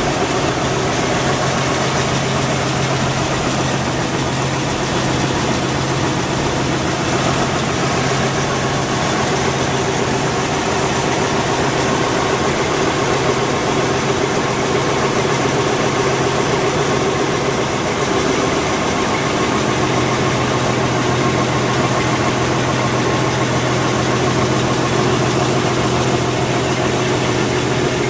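White 160AX 386-cubic-inch six-cylinder gasoline engine of an M2A1 halftrack idling steadily, freshly rebuilt and being run in.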